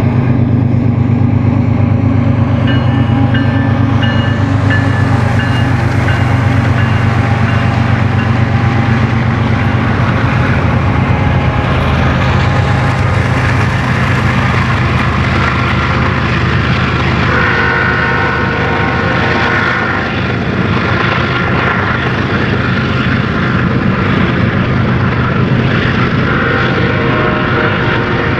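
Diesel locomotives of a BNSF freight train running close by, their engines making a loud, steady low drone.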